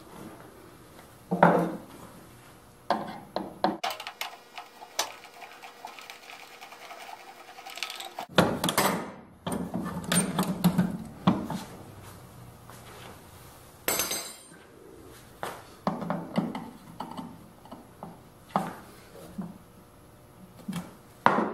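Irregular clinks, taps and knocks of hand tools and metal hardware handled against a plywood caster stand, with a few louder knocks about a second and a half in and around nine seconds in.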